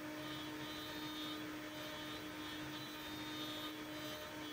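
ShopSabre CNC router spindle running a low-helix end mill that is roughing out a pocket in an acetal (Delrin) sheet. A steady spindle hum, with a higher cutting hiss that swells and fades repeatedly as the tool moves through the plastic.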